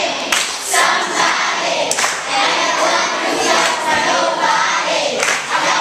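A large group of primary school children singing a song together in English, as one loud chorus in a classroom.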